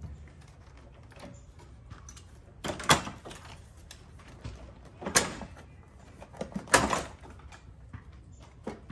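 Plastic clips of a Ford Bronco's front grille popping and clattering loose as the grille is pulled off by hand. The snaps come in three clusters about two seconds apart, with lighter ticks between them.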